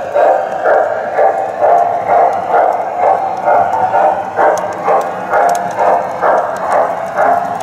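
O-gauge model freight train running, with an even pulsing about twice a second and faint light clicks.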